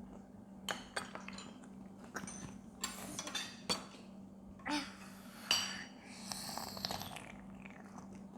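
Eating utensils clicking and clinking against bowls during a meal of rice, tofu and soup: a series of light knocks, with one ringing clink about five and a half seconds in. A faint steady hum runs underneath.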